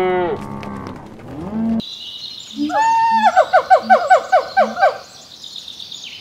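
Cattle mooing for the first couple of seconds. Then a bird calls: an opening note followed by a quick run of about a dozen short falling notes, with a steady high tone behind them.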